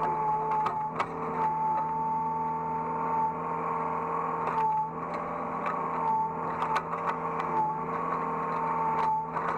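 Hydraulic excavator's engine running steadily, heard from the operator's cab, with a high hydraulic whine that dips and comes back several times. Scattered sharp clicks sound over it.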